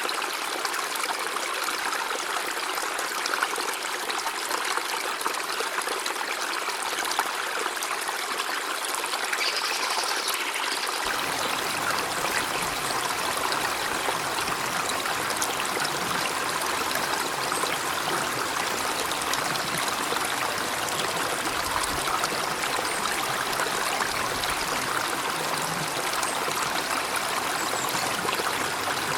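River water flowing over rocks in a steady rush. About eleven seconds in the sound turns fuller and deeper, as a lower rumble of water joins in.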